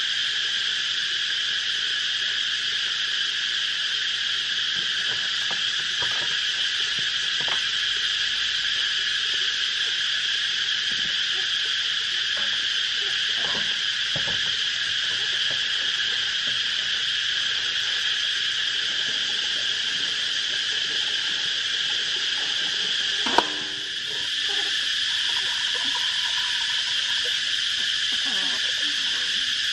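A continuous steady shrill chorus of insects. A few faint knocks come through in the first half, and a sharp click sounds about three quarters of the way in.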